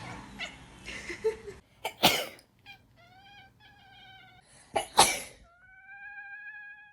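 A person sneezes sharply twice, and a cat answers each sneeze with meows: a few short meows after the first and one long, steady meow after the second.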